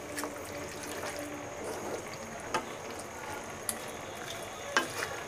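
Raw beef pieces sizzling in oil and spice paste in a steel pot as they are stirred, with a few light knocks of the spatula against the pot. The meat is being dry-fried (kosha) with no water added.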